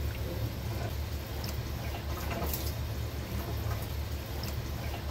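Water poured from an eggshell half into beaten eggs in a glass bowl, trickling and splashing a few times, over a steady low hum.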